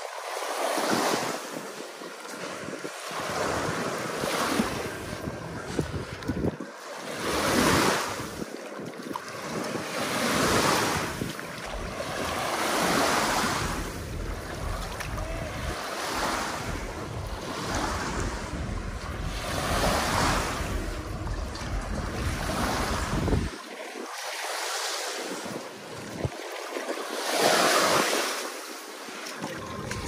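Sea waves breaking and washing up the shore, swelling and ebbing every two to three seconds, with wind rumbling on the microphone through much of it.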